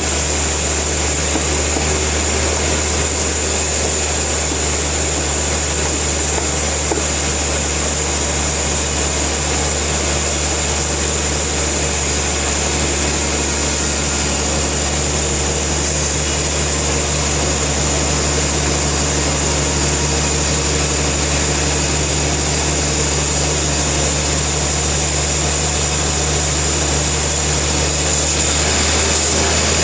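Steady drone of sawmill machinery running, a constant low hum with a thin high whine above it and no change in speed.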